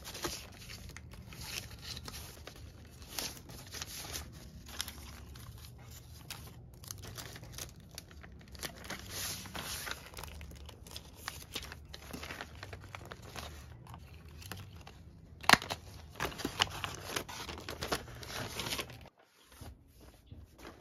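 Kraft paper bag being folded and smoothed by hand: paper crinkling and rustling with many sharp crackles, the loudest about fifteen seconds in.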